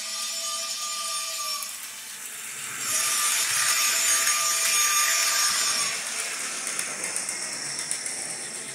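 The factory DCC sound decoder of a Mantua 0-6-0 Pennsylvania saddle tank switcher sounding its steam whistle through the model's small speaker. It gives a short blast, then a longer one about three seconds in that comes with loud hissing.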